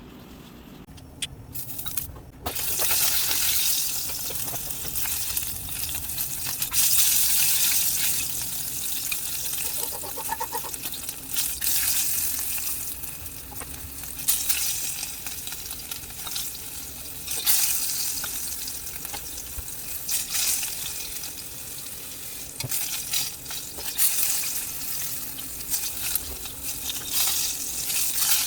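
Beef tenderloin steak sizzling in a hot frying pan, the hiss starting about two seconds in and swelling and easing over and over.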